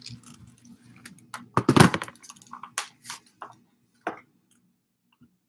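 Camera handling noise as the camera is moved down and set at floor level: a loud knock with rubbing about two seconds in, then scattered clicks and a sharper knock about four seconds in.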